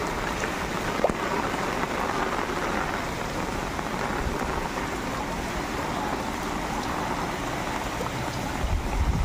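Steady heavy rain falling on a flooded street, an even hiss of drops on water and surfaces. Near the end a low rumble of wind on the microphone starts to come in.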